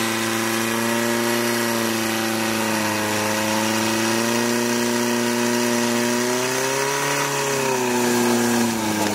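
Portable fire pump engine running steadily at high revs while it pumps water through the attack hoses. Its pitch rises slightly about seven seconds in, then drops back near the end.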